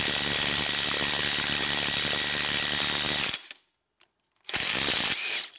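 Impact wrench running on a long M14 x 1.5 bolt, drawing a new crank pulley (harmonic balancer) onto the crankshaft of a GM 3.5 L LX5 V6. It runs steadily for about three seconds, stops, then gives one short burst of under a second near the end.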